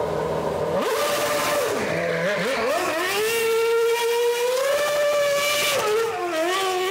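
Red Bull RB8 Formula One car's naturally aspirated V8 engine held at high revs while spinning doughnuts, with the rear tyres scrubbing and squealing. The pitch dips and rises early on, climbs and holds high, then drops near the end.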